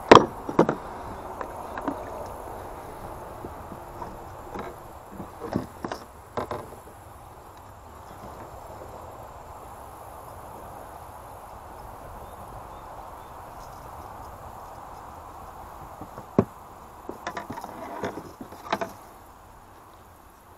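Paddling a Pelican plastic kayak: scattered sharp knocks of the paddle against the hull, bunched in the first six seconds and again near the end, over a steady hiss of water and hull moving through the shallows.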